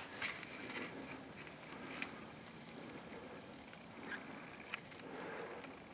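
Faint rustling of people crawling over dry grass and leaves, with a few scattered light snaps and clicks.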